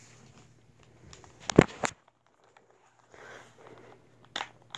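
Handling noise close to the microphone as the recording device is moved and tilted: a cluster of sharp knocks about a second and a half in, a short faint rustle around three seconds, and two small clicks near the end.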